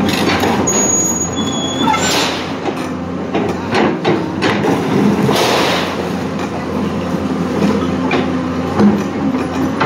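Hyundai crawler excavator's diesel engine running steadily under load. Its steel bucket scrapes and knocks through brick and concrete rubble, with a few short, high metallic squeals near the start.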